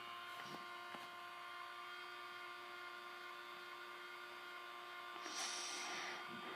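Toy microwave running: a faint steady hum made of several held tones. A brief hissy rustle about five seconds in.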